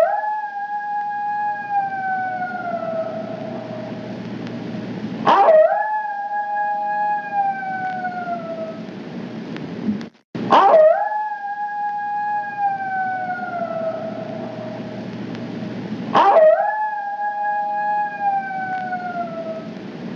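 Coyote howling four times, each howl a quick upward swoop into a long held note that slowly sinks in pitch.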